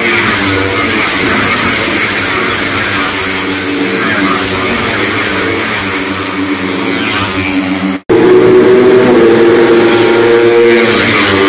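A pack of Cub Prix racing motorcycles revs hard as the bikes accelerate off the start and pass one after another. The sound cuts off abruptly about eight seconds in, then comes back louder as another group of bikes goes by.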